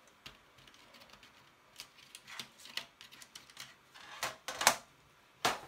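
Colour pencils clicking and rattling against each other as they are picked out. Light irregular clicks, with a few louder knocks near the end.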